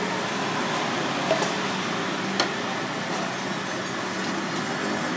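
Steady outdoor street background noise with a faint low, steady hum, and a few light clicks about a second in and again near two and a half seconds.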